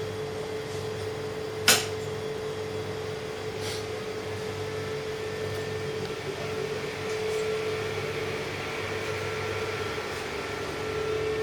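A fan motor runs with a steady hum, with one sharp click about two seconds in and a fainter one shortly after.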